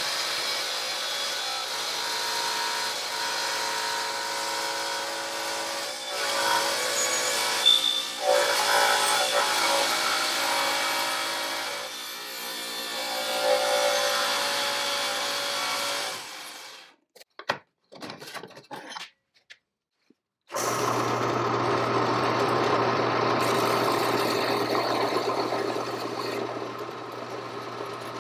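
Table saw cutting through a 6061 aluminium bar, a steady machine whine with the blade biting the metal, for about sixteen seconds, then it stops abruptly and a few brief clicks follow. About twenty seconds in, a horizontal metal-cutting band saw starts running steadily with a low hum.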